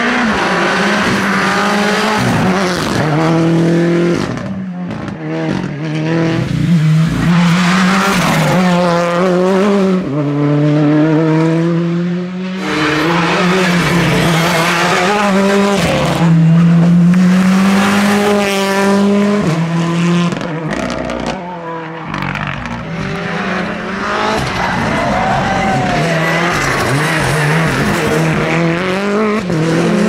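Rally cars driven flat out one after another, their engines revving up through each gear and dropping at every shift and lift.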